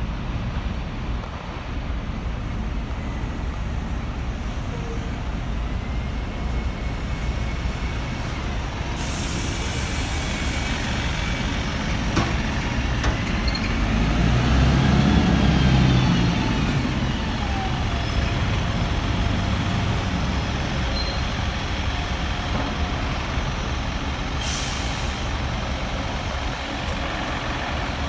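City buses' diesel engines running and pulling past close by, loudest about halfway as a single-deck bus turns past. Sharp hisses of air brakes venting come twice, about a third of the way in and near the end.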